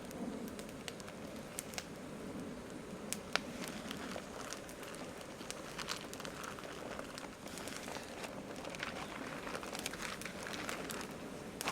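Campfire burning, wood crackling with irregular sharp pops over a low steady rush.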